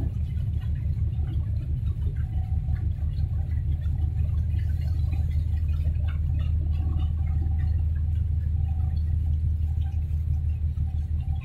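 Low, steady rumble of a large container ship's engine as the ship gets under way leaving its berth.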